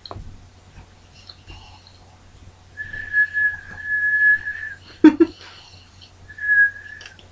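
A person whistling through a mouthful of crackers. One long steady whistle of about two seconds, then a short loud burst, then a second, shorter whistle at the same pitch.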